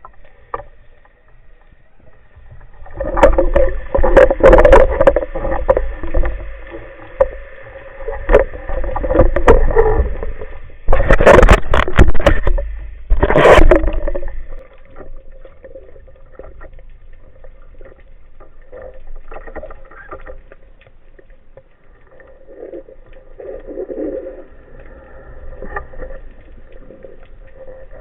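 Water churning and bubbling in loud, uneven bursts with clicks for about ten seconds, then dying down to faint sloshing.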